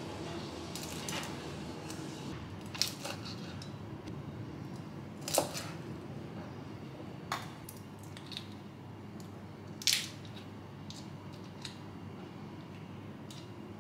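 Kitchen knife tapping and clicking on a white cutting board as raw shrimp are cut and handled, with scattered sharp taps, two louder ones about five and ten seconds in, over a steady low room hum.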